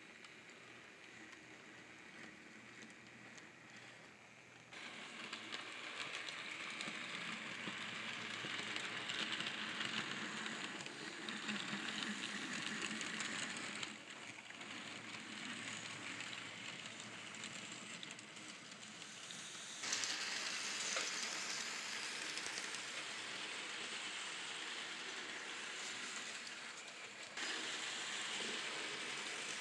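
N scale model train running along the layout track: a steady hissing running noise of wheels and motor. It gets louder about five seconds in and changes level abruptly several times.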